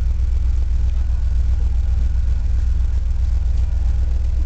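Steady, unbroken low rumble, very deep and even in level, with no bangs or crackles.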